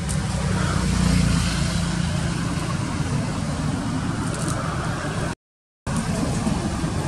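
Steady low rumble like a running motor vehicle engine, under a hiss of outdoor background noise. The sound cuts out completely for about half a second a little past the middle.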